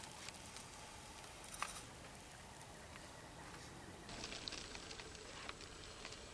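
Quiet woodland ambience, with a single faint click about one and a half seconds in and a few faint ticks and light rustles a little past the middle.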